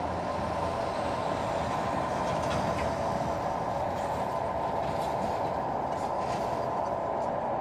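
A steady, even rushing noise, strongest in the middle of the range, with a few faint clicks scattered through it.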